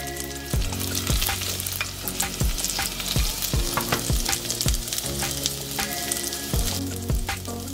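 Sliced garlic and dried red chilies sizzling in ghee in a stainless steel saucepan: a steady, fine crackle of gentle frying.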